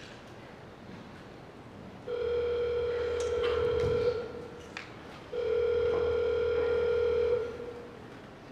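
Telephone ringing tone from a recorded call played over loudspeakers: two steady rings of about two seconds each, the line ringing at the far end before anyone answers.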